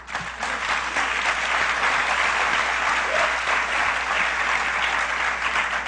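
Large convention audience applauding, swelling quickly at the start, holding steady, then easing off near the end.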